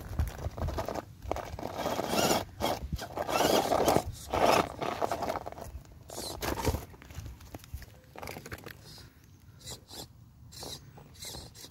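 Electric RC rock crawler clambering over rocks: its tyres and chassis scrape and crunch on stone and gravel in uneven bursts. The bursts are loudest about two to five seconds in and grow fainter and sparser after about eight seconds.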